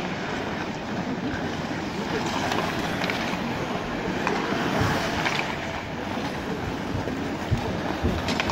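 Ice hockey skates scraping and hissing on the ice, with a few scattered clicks of sticks and puck.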